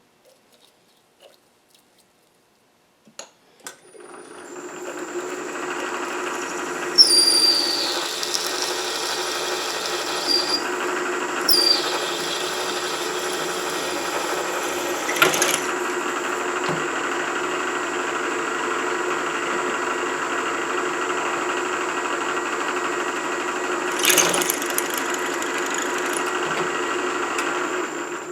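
Milling machine spindle starting about four seconds in and running steadily while a cutting tool works a metal plate, giving two short, high, falling squeals, with a couple of sharp knocks later on.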